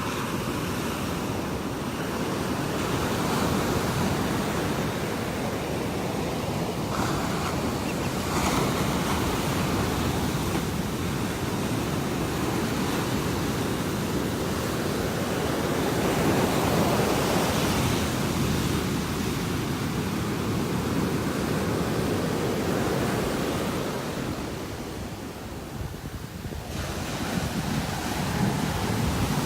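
Ocean surf breaking on the beach, a continuous wash that swells and ebbs as the waves come in, with wind buffeting the microphone.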